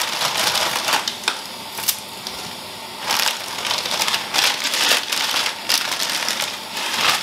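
Plastic bag of dried ramen noodles crinkling and rustling as it is handled, in irregular bursts of sharp crackles that are loudest about three to five seconds in and again near the end.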